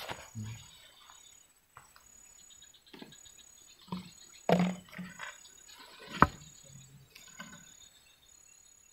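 Insects chirping, a high call repeating in short even pulses about once a second. A few short low sounds come about four to five seconds in, and a single sharp click comes just after six seconds.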